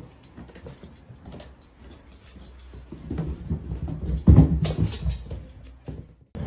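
A dog making low noises and moving about, getting louder from about three seconds in, with the loudest sound a little after four seconds.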